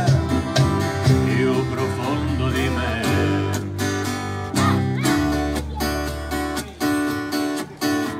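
Live folk band music: a strummed acoustic guitar over electric bass lines, with accordion and congas keeping a steady beat.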